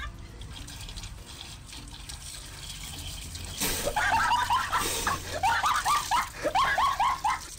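Water running from a tap into a concrete sink as a man rinses his head under it. From about four seconds in, it is joined by a rapid series of short, high-pitched, rising calls.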